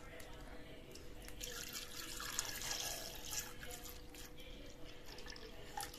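Milk poured from a metal pot into the stainless steel jar of a mixer grinder: a faint splashing stream, loudest from about one and a half to three and a half seconds in.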